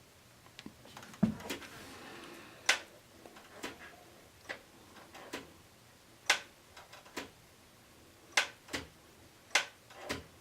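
Slide dimmer light switch clicked on and off over and over, about eleven sharp clicks roughly a second apart at irregular intervals. The switch only sometimes turns the light on.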